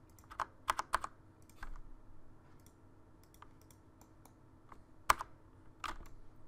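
Scattered computer keyboard keystrokes: a few irregular taps in the first couple of seconds, then a pause, then a sharper keypress about five seconds in and one more shortly after.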